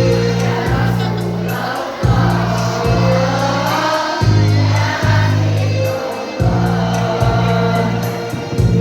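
A choir singing over an instrumental accompaniment, with a deep bass line that moves to a new note about every second.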